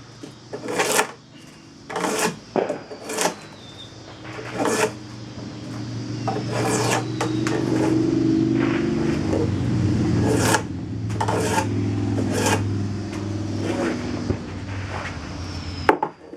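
Drawknife taking big shaving cuts on a green black locust hatchet handle blank, a sharp scraping stroke every second or so at an uneven pace. From about six seconds in, a low steady motor hum builds underneath and fades near the end.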